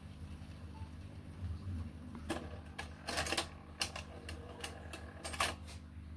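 A run of sharp mechanical clicks and clunks from a 1962 Dansette Conquest record player being handled once the record has finished, about a dozen in three seconds, over a steady low hum.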